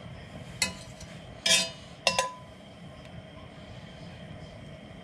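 A metal butter knife clinks against a cast-iron skillet three times in the first couple of seconds, each clink with a short metallic ring, while butter is pushed around the hot pan.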